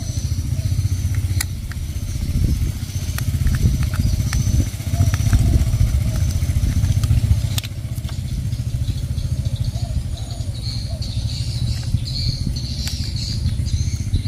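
A steady low rumble of unclear origin, with a few sharp plastic clicks as a toy train locomotive's shell is pulled off its chassis.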